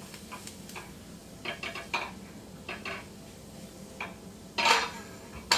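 A cooking utensil scraping and knocking against a small skillet as diced celery and onion are stirred in melted butter: a string of short scrapes and taps, the loudest a little after four and a half seconds in.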